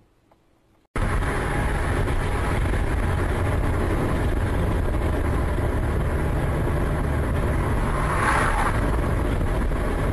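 Near silence, then, cutting in suddenly about a second in, steady loud road and engine noise of a car driving at speed on a highway, as picked up by a dashcam inside the car. A brief swell of hissing noise comes near the end.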